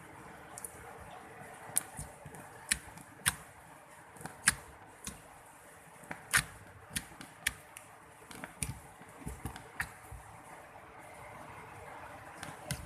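Slime being squeezed and worked by hand, giving irregular sharp clicks and pops, a dozen or more, the loudest around the middle.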